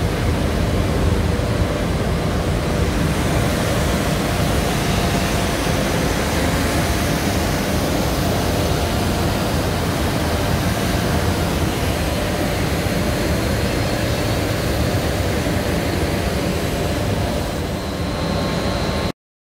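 Steady running noise of a polypropylene monofilament extrusion line for rope yarn (120 mm screw extruder and drawing line), a dense even hum with a few faint steady tones in it. It cuts off suddenly near the end.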